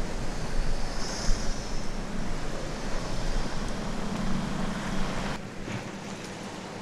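Rushing wind noise on the microphone over a BMW X3 SUV driving slowly on a rocky dirt track, with a low engine hum rising briefly about four seconds in. The sound changes abruptly a little after five seconds.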